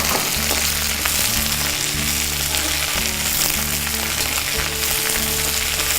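Mint leaves sautéing in hot oil in a kadai, a steady sizzle. Background music of sustained low notes plays under it.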